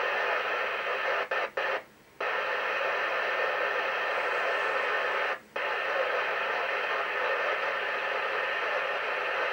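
Steady FM static hiss from a TTI TCB-660 CB radio's speaker, with no station audible. It cuts out briefly a few times between one and two seconds in and again around five and a half seconds, as the squelch set at threshold closes and reopens.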